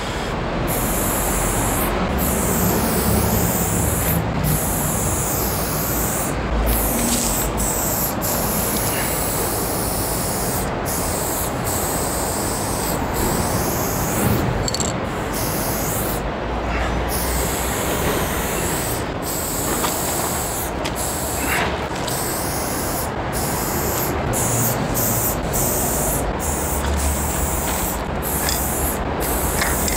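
Aerosol spray-paint can hissing in long strokes, broken by many short pauses, with the replacement nozzle now spraying cleanly. A steady low rumble runs underneath.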